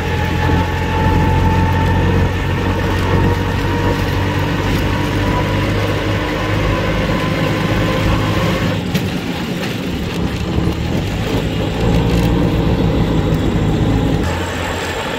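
Steady low engine hum and road noise of a moving car, heard from inside the vehicle; the low hum eases about 14 seconds in.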